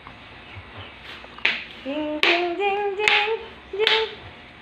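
A voice singing a tune in held notes, with sharp handclaps on a steady beat about every 0.8 s, starting about a second and a half in.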